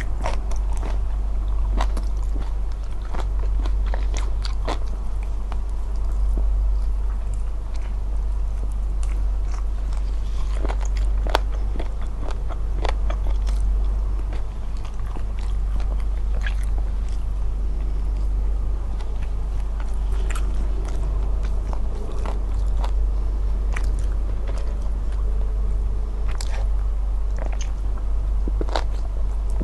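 Close-miked eating: chewing and biting, with many scattered sharp clicks from mouth and food, over a steady low hum.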